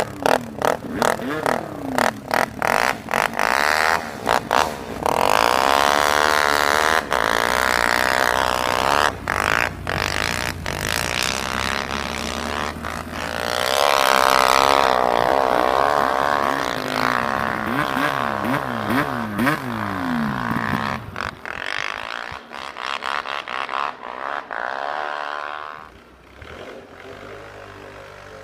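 ATV engine revving up and down as it is ridden, the pitch rising and falling again and again, with the sound cutting in and out in quick flutters during the first few seconds. It fades down near the end.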